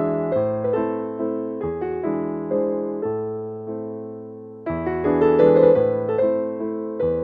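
Background music: slow, gentle piano, notes struck one after another and left to ring, fading softly before a louder, fuller passage comes in about two-thirds of the way through.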